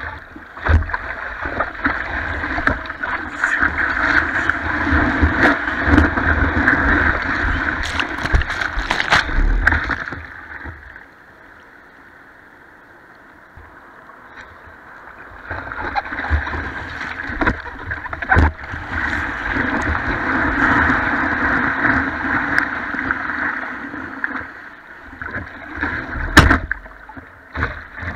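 Broken surf washing and sloshing against a surfboard, heard from the board's nose close to the water. The rush comes in two long surges with a quieter lull between them, and a sharp knock sounds near the end.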